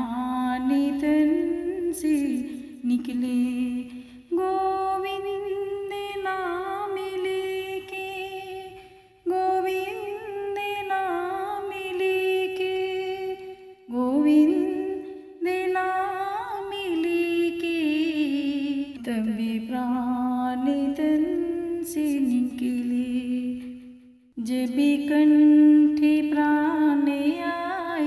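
Background music: a slow melody hummed by a woman's voice in long, slightly wavering held notes, in phrases broken by short pauses.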